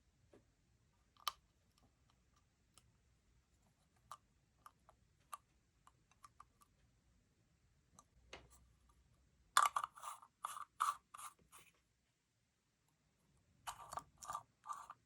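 Small hard objects being handled: scattered light clicks and taps, then a quick run of about six short scraping or crunching strokes, and another similar run near the end.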